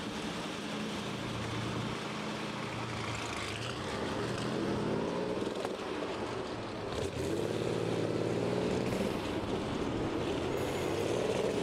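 Rolls-Royce Hurricane's 27-litre Rolls-Royce V12 aircraft engine running as the car pulls away and accelerates, its pitch climbing about three seconds in and again around seven seconds in.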